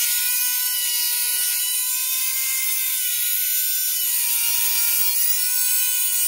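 Micro motor handpiece spinning a Dremel abrasive cutoff wheel at high speed, cutting through a steel utility knife blade: a steady whine with a harsh grinding hiss over it, the pitch wavering slightly as the wheel bites.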